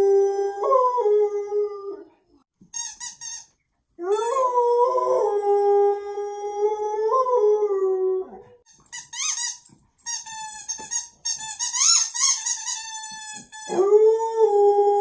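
A dog howling in long, drawn-out, steady notes: three howls, the middle one the longest, with a stretch of higher, broken, wavering squeals between the second and third.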